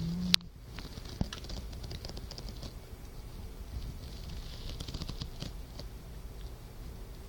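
Soft snoring breaths of a sleeper fast asleep: a breathy hiss that swells and fades twice, with faint small clicks throughout and one sharp click about a third of a second in.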